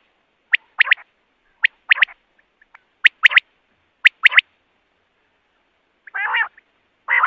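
Common quail singing its three-note 'wet-my-lips' song, four phrases about a second apart. After a short pause near the end come two longer, raspier notes.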